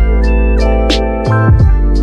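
Instrumental background music: keyboard chords over a deep bass line, with a sharp beat hit about every second and a half.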